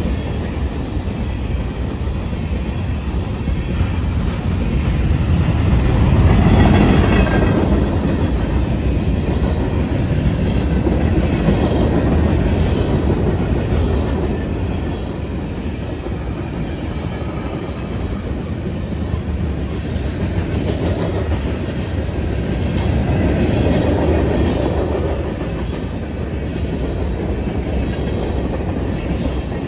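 Cars of a manifest freight train rolling past close by: steel wheels running on the rails in a steady noise that grows louder and softer as the cars go by.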